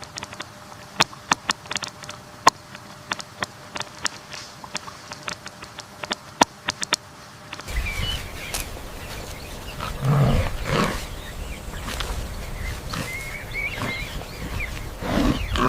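Sharp irregular clicks over a steady hiss, then, after an abrupt change about eight seconds in, a low rumble with deep animal growls or grunts, the strongest just after ten seconds and again near the end.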